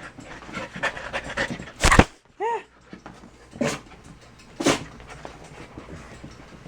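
Wet Australian Shepherd panting hard after a bath, with a sharp knock about two seconds in, a short squeak just after it, and two more knocks a little later.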